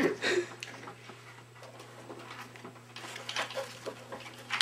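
Laptop keyboard keys being typed on, faint irregular clicks that start about three seconds in and come quicker toward the end, over a steady low hum.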